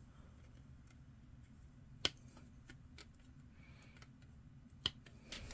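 Sprue cutters snipping a part from a grey plastic miniature-kit sprue: two sharp clicks almost three seconds apart, over a faint low hum.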